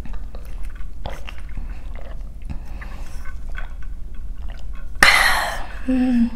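Close-up eating and drinking mouth sounds: sips of water through a bottle's straw lid, with small wet clicks and swallows. About five seconds in comes a loud, breathy burst of air, followed by a short hummed voice.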